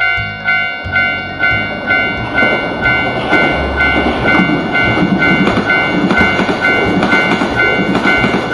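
Japanese railroad crossing warning bell ringing in a steady two-tone chime about twice a second. From about two seconds in, the rushing noise of a passing shinkansen train joins it.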